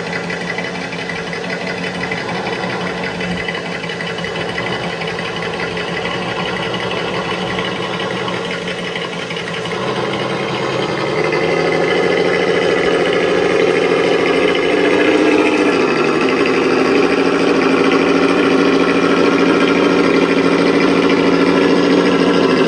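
Simulated engine sound from an RC truck's engine sound module, played through its speaker: idling, then rising in pitch and getting louder about ten seconds in, and staying revved up.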